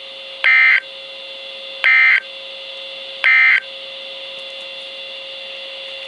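NOAA Weather Radio Emergency Alert System end-of-message signal, played through a Midland WR100 weather radio: three short, identical digital data bursts about 1.4 s apart, marking the end of a tornado warning test broadcast. A steady hum runs underneath.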